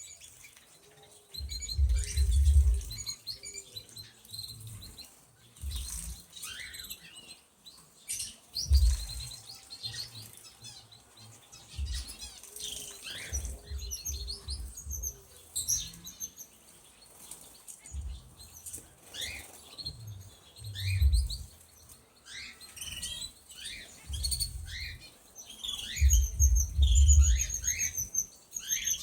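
Canaries chirping and trilling in a flight cage, broken by several loud spells of wing flapping as birds fly about.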